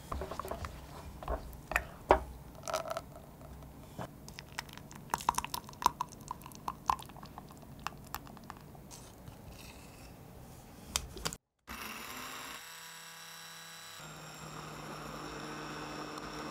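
Silicone spatula scraping and tapping around a stainless steel saucepan of hot custard, then the custard being poured into a plastic beaker. After a short break, about twelve seconds in, an immersion blender starts and runs with a steady motor hum.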